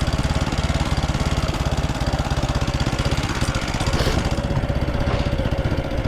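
Small single-cylinder motorcycle engine running steadily at low speed, an even rapid putter of firing strokes, with a faint steady whine joining about four seconds in.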